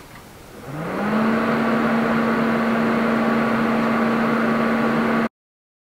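R-Tech TIG welder arc welding a steel drive shaft joint: a steady electric buzz with a hiss that rises in pitch as the arc builds, about half a second in, then holds steady. The sound cuts off abruptly near the end.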